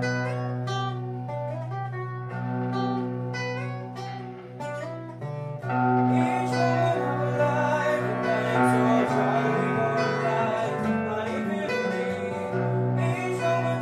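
Soundtrack music: picked acoustic guitar notes over a held low bass note, filling out about six seconds in with a singing voice, then back to picked guitar near the end.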